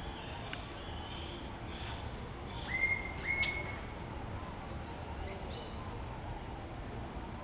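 Animal calls over steady outdoor background noise. Two loud, short, level whistle-like calls about half a second apart come a little before the middle, with fainter high chirps before and after.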